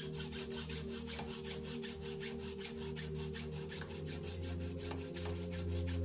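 Bicycle handlebar being cut while held in a bench vise: an even, rhythmic rasping of about five strokes a second, over background music.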